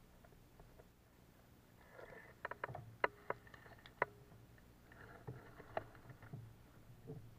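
Light knocks, clicks and rustling of gear being handled aboard a small inflatable boat, in two clusters: about two to four seconds in, and again around five to six seconds in.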